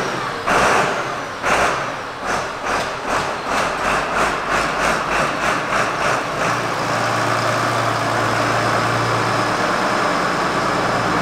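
Massey Ferguson 3690 tractor's diesel engine running in repeated surges that come faster and faster, then holding a steady note from about six and a half seconds in.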